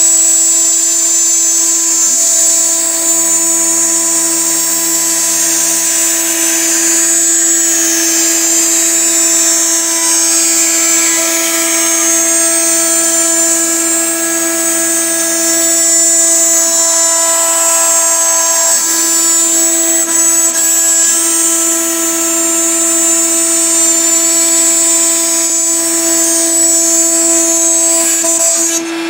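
CNC router spindle running with a steady whine as its bit cuts through a high-pressure laminate (HPL) sheet.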